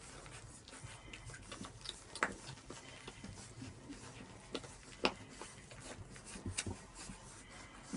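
Litter of 15-day-old Saint Bernard puppies suckling at their mother, with scattered soft smacking clicks and two sharper ones about two and five seconds in.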